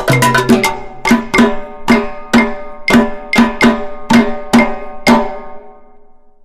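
Percussive music: a quick, even run of struck, pitched beats, about four a second, dying away a little after five seconds in.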